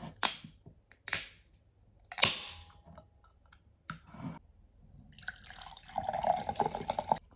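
Water sounds: a few separate drips with short gaps between them, then about two seconds of busier splashing water near the end.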